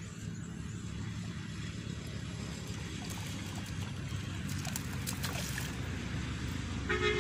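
A hooked milkfish splashing at the pond surface as it is played on a fishing line, with a cluster of splashes a little past halfway, over a steady low rumble.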